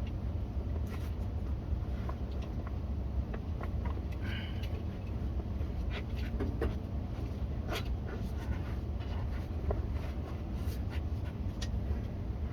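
Scattered light clicks, taps and scrapes over a steady low rumble.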